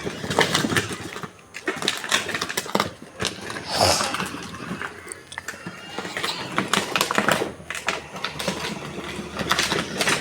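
A children's battery-powered ride-on 4x4 car running, its electric drive motors humming while the wheels clatter over rough ground with many irregular clicks and knocks.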